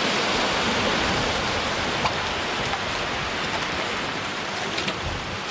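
Steady rush of seawater washing in the shallows over shore rocks, with a few small splashes.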